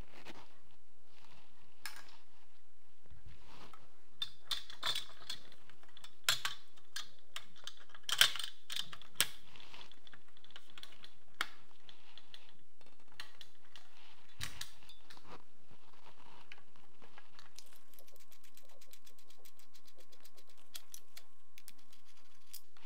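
Metal clicks and clinks of an RPK rifle and hand tools being handled on a table as its buttstock is taken off, with a dull knock about two-thirds through. Near the end comes a fast, even ticking of a screwdriver turning a screw out.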